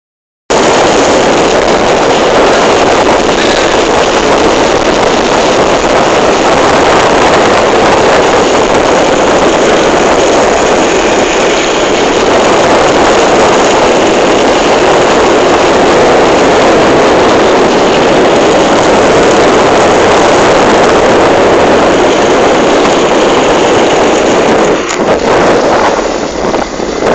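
Loud, steady rush of wind and road noise from a moving vehicle, dipping briefly near the end.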